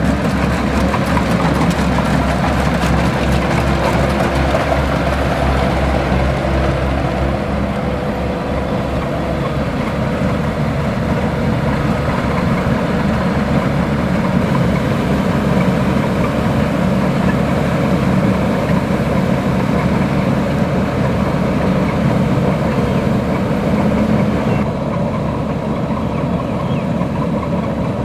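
Kubota rice combine harvester's diesel engine running steadily under load, with the whir of its machinery.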